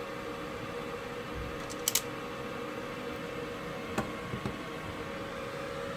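Steady hum of a fume extractor fan, with a sharp double click from wire strippers biting through and pulling off a wire's insulation about two seconds in, and fainter ticks near four seconds.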